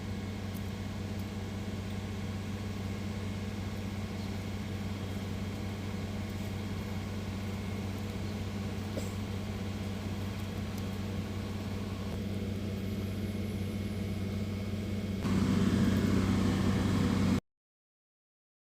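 An engine idling steadily, louder for the last two seconds before the sound cuts off abruptly.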